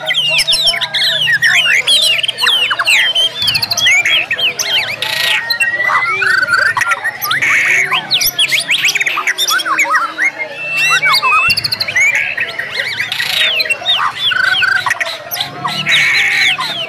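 Many white-rumped shamas (murai batu) singing at once in a dense, unbroken chorus of fast overlapping whistles, trills and sharp chirps, including the hard 'nembak' (shooting) phrases of contest song.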